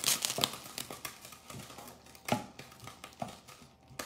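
Wooden spoon stirring thick tomato sauce in a frying pan, scraping and knocking sharply against the pan several times, over a hiss of sizzling that fades in the first half-second.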